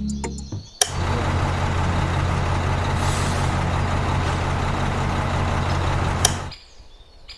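Heavy vehicle engine running steadily, starting with a click about a second in and cutting off suddenly near the end.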